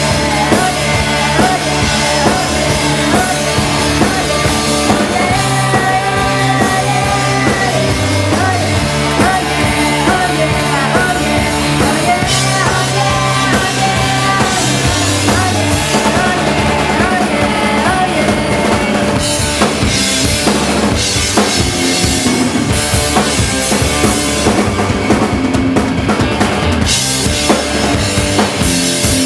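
Live rock band playing an instrumental passage with the drum kit prominent, over a low line that steps between notes.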